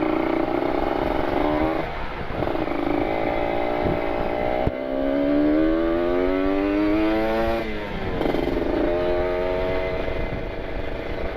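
Kawasaki Ninja RR 150's two-stroke single-cylinder engine through an R9 carbon aftermarket exhaust, accelerating through the gears. The pitch climbs, then drops at an upshift about two seconds in, again near five seconds and near eight seconds, and holds steadier toward the end.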